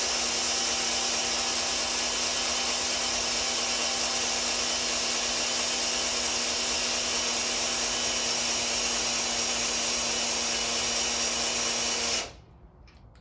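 Cordless drill running steadily at a constant speed, turning an oil pump priming tool that pumps oil through a new engine's oil system; it stops suddenly about twelve seconds in.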